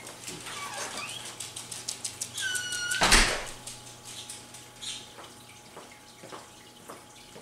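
A small dog whining in short high-pitched calls, then a wooden door shutting with a loud thump about three seconds in. Light footsteps on a hardwood floor follow.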